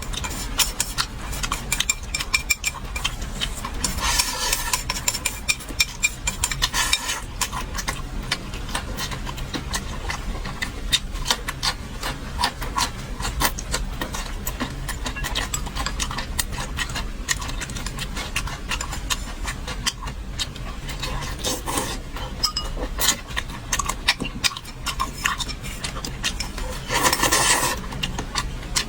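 Eating at a table: many short clicks and knocks of utensils against dishes, with chewing and rubbing sounds, and louder scraping bursts about four seconds in and near the end.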